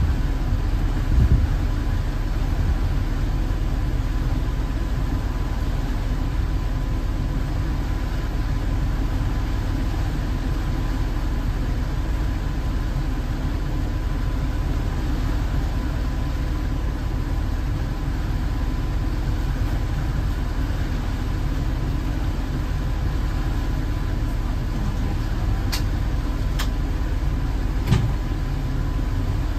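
A motor cruiser's engine running steadily underway, heard at the helm as an even low drone, with a faint steady high tone and a few light clicks near the end.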